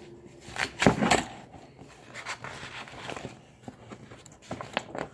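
Pages of a picture book being turned and handled: a loud paper rustle about a second in, then softer crinkles and rustles of the pages.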